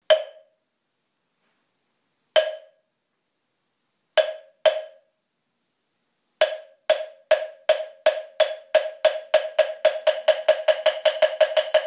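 A hollow wooden block struck by hand: a single stroke, another about two seconds later, then two close together. From about six seconds in comes a run of strokes that steadily speeds up into a fast roll.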